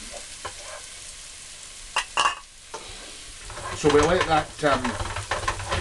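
Garlic, ginger and chilli paste sizzling in hot oil in a frying pan as it is stirred with a wooden spoon, with a couple of sharp knocks about two seconds in.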